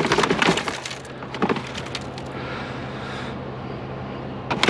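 Discarded junk being handled and shifted in a curbside pile: several sharp knocks and clatters, thickest in the first second and again near the end, over a steady low hum.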